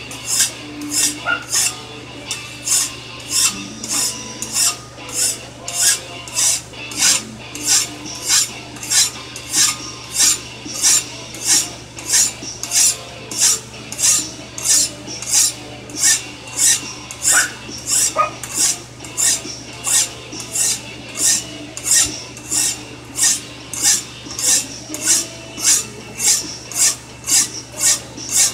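Hand file rasping over a steel knife blade clamped in a bench vise, in steady even strokes a little under two a second, taking the edge bevel down before heat treatment.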